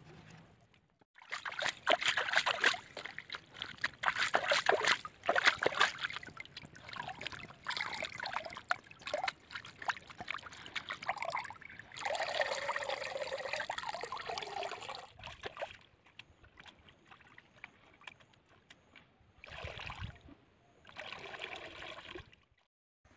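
Water sloshing and dribbling as chicken intestines and skin are rinsed by hand in a metal bowl dipped in shallow water, in irregular splashy bursts with a quiet stretch past the middle.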